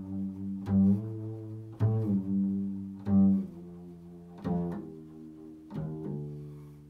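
Slow improvised music on a low-pitched plucked string instrument: single notes struck roughly once a second, each ringing and then fading.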